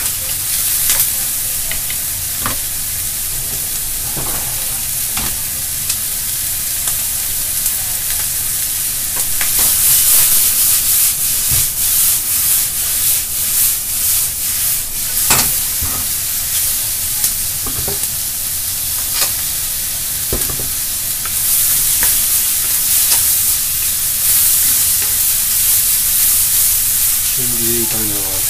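Sliced onions and meat sizzling in a hot iron wok while a wooden spatula stirs and scrapes, with frequent short knocks of the spatula against the pan. From about a third of the way in the sizzle and clatter get louder and busier as the wok is tossed over the gas flame, then settle back to steady stirring.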